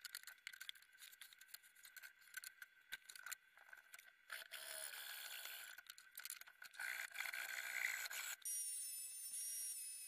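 Faint clicks, knocks and scrapes of wooden boards being picked up and set down on a saw table. Near the end, a high wavering whistle-like tone begins.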